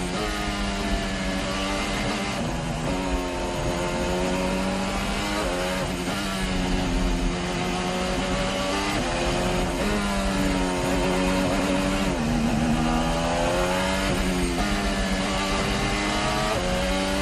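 Formula 1 car's engine heard onboard at racing speed, its pitch climbing under acceleration and dropping again at gear changes and braking, several times over.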